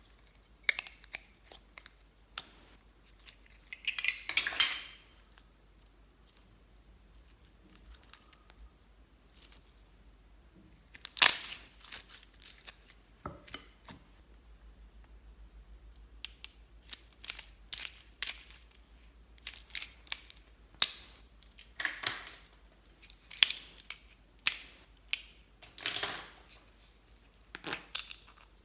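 Hands handling slime and small objects: scattered sharp clicks and taps, and short crackling, crinkling rustles, with quiet gaps between. The loudest crackle comes about a third of the way in.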